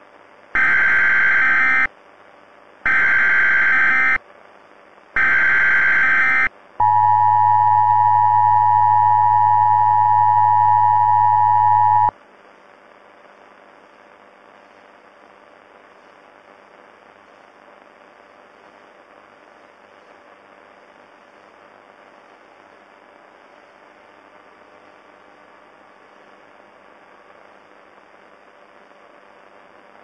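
Emergency Alert System broadcast tones: three short, loud bursts of screechy SAME header data, then the two-tone EAS attention signal held steady for about five seconds before cutting off suddenly. A low steady hiss remains after it.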